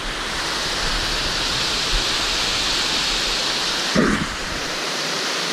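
Small waterfall pouring into a shallow stream pool: a steady rush of falling water. A brief short sound about four seconds in.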